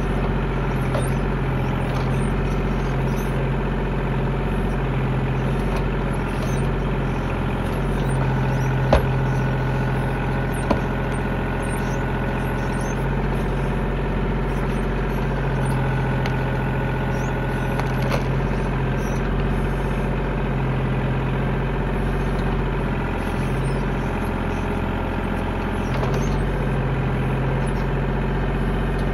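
Tractor engine running steadily, with two sharp knocks about nine and eleven seconds in.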